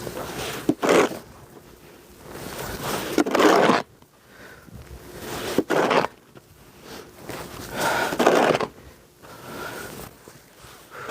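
Snow shovel scraping and scooping snow in a steady working rhythm, one loud scrape every two to three seconds.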